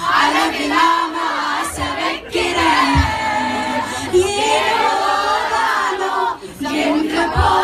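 A crowd of young women singing a song together, loud and unpolished, with a couple of low thumps.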